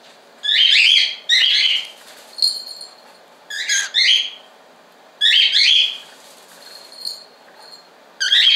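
Cockatiels calling: five short, shrill chirps at uneven intervals, with a faint thin whistled note between them.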